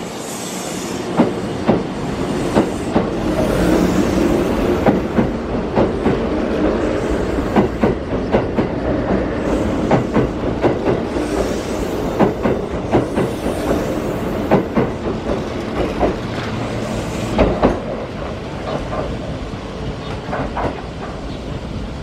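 Kintetsu Urban Liner limited express electric train pulling out of the station. Its wheels clack over rail joints and points in a long run of sharp beats over a steady running rumble, which builds over the first few seconds and fades near the end.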